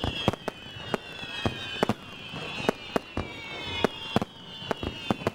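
Fireworks display going off: about a dozen sharp bangs and pops of launches and bursts at irregular intervals, over repeated whistles that fall in pitch about once a second.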